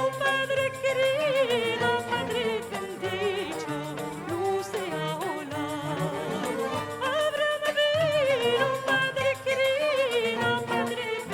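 A solo voice singing a heavily ornamented melody, with quick vibrato and melismatic turns, over low sustained instrumental notes.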